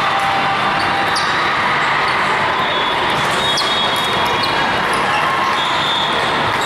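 Volleyballs being hit and bouncing in a busy gym hall, over a steady din of many voices, with short high squeaks now and then.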